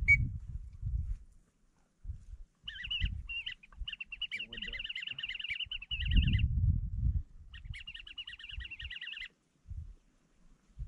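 Two runs of rapid, high, whistle-like duck peeping: one about four seconds long and a shorter one about two seconds later. Low rumbles and knocks run underneath, loudest near the middle.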